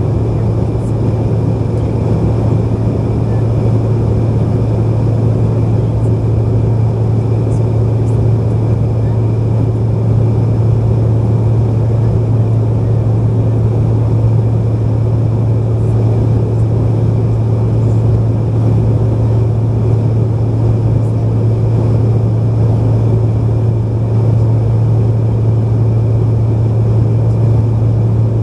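Cabin noise of a Bombardier CRJ-900 at cruise: the steady low drone of its rear-mounted General Electric CF34 turbofans and the rush of airflow, with a faint steady high whine.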